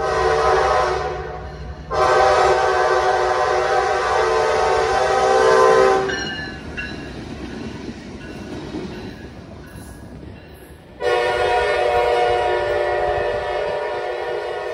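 Nathan K5LA air horn on EMD SD60E diesel locomotives sounding a short blast, then a long blast of about four seconds. The lead locomotive then passes with engine rumble and wheels clattering over the rail joints, and about eleven seconds in the horn sounds another long blast.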